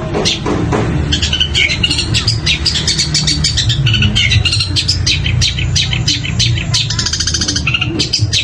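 Long-tailed shrike (cendet) singing a fast, unbroken stream of varied high chirps and mimicked calls of other birds, with a rapid rattling trill about seven seconds in.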